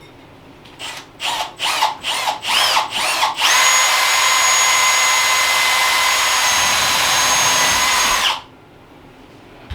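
Power drill with a 3/8-inch bit starting a new hole. The trigger is blipped in about six short bursts, then the drill runs steadily with a whine for about five seconds and stops abruptly.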